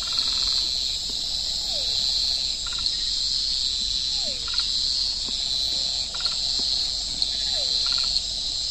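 Steady high-pitched chorus of insects trilling, with short pulsed frog-like calls every second or two and three brief falling calls.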